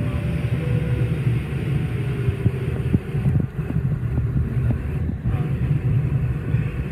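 Steady low rumble of cockpit noise in a Cessna Citation XLS business jet, with scattered light knocks and rattles.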